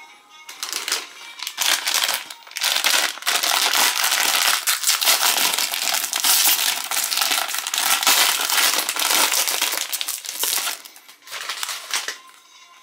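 Plastic-foil snack wrapper of a Chipicao croissant packet crinkling and crackling as hands pull it open and crumple it. The crinkling starts about half a second in, runs loud and continuous, and dies down near the end.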